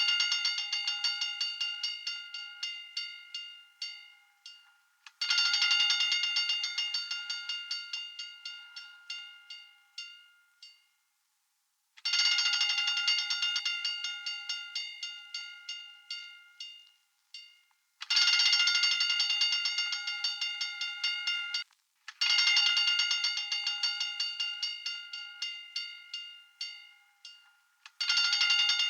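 Hand-cranked fire alarm bell ringing in repeated bursts of rapid clanging. Each burst starts loud and fades away over several seconds. A new burst starts about every four to seven seconds, with short silent gaps between some of them.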